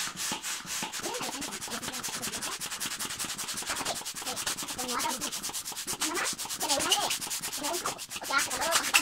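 Hand balloon pump pumping air into a foil orbz balloon in quick, even strokes, several a second, each a short hiss of air.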